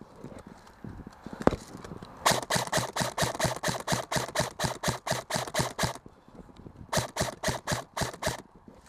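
Airsoft gun firing two strings of rapid, evenly spaced shots, about five a second: a longer string of roughly four seconds, a short pause, then about eight more shots. A single sharp click comes first.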